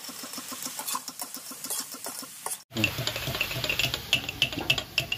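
Diced bottle gourd being stirred as it fries in an iron wok, with fine scraping and clinking. After a cut about three seconds in, louder clinking and frying as an aluminium lid is set down on the wok.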